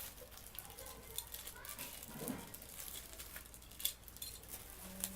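Plastic packaging crinkling and rustling, with a run of small sharp clicks and crackles, as accessories are handled and taken out of their bags.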